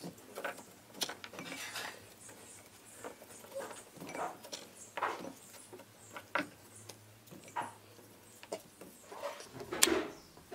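Carrot pieces dropped by hand into a small glass bowl: irregular light knocks and clicks of carrot on glass, about one a second. A louder knock near the end as the bowl is taken hold of on the cutting board.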